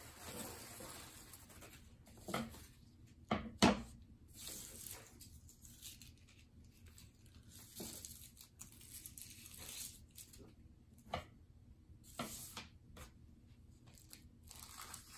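Craft supplies being shifted around on a plastic-covered table: paper and plastic sheeting rustling, with a few knocks as things are picked up and set down.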